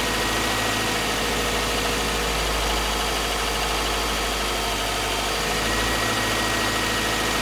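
2012 Subaru Forester's 2.5-litre flat-four engine running steadily at about 1600 rpm in drive, held there to try to bring out its hot-engine spark-knock rattle while it runs on premium fuel. No clear rattle stands out.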